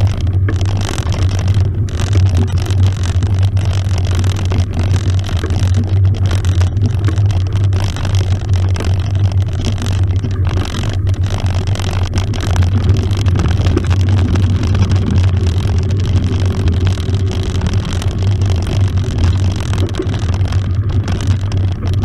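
Mountain bike rolling along a grass-and-gravel track, picked up by a camera mounted beside the front fork: a steady, loud low rumble from the tyres and wind on the microphone, with a hiss over it.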